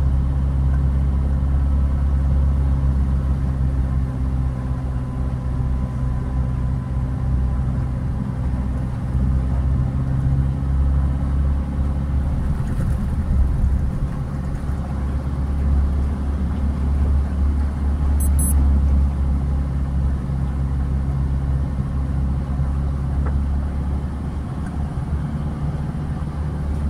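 Steady low rumble of a car's engine and running gear, heard from inside the cabin as it drives slowly along a flooded road.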